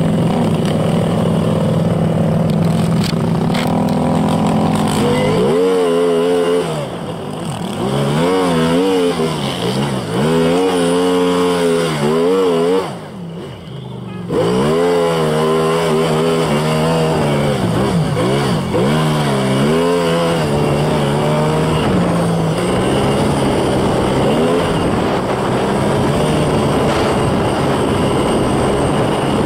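Snowmobile engine idling, then revved up and down over and over as it pulls away, dropping off briefly about halfway through. It then settles into a steady run along the trail.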